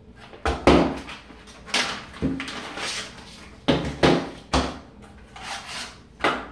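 A series of knocks and rustles as plastic .22 rifle magazines, their cardboard box and a plastic bag are handled and set down on a table.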